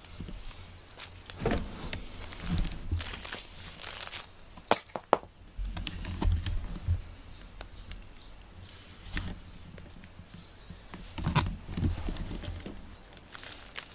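Close handling noises: scattered sharp clicks and knocks with light metallic jingling, and a few low thumps.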